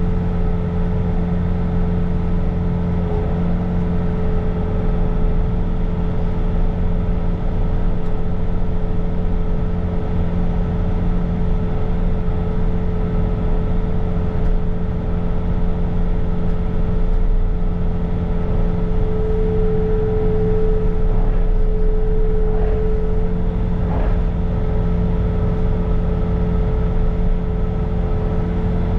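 Bobcat T66 compact track loader's diesel engine running steadily at working speed, driving a snow blower attachment through another pass. The sound holds a constant level with steady humming tones over a low rumble.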